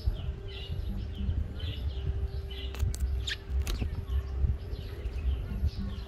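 A group of sparrows chirping, with short chirps following one another several times a second and a couple of sharper high calls near the middle. A low rumble runs underneath.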